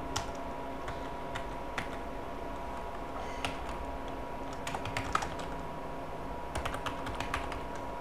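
Typing on a computer keyboard: a few separate keystrokes in the first half, then quick runs of keystrokes about five seconds in and again near seven seconds. A faint steady hum lies underneath.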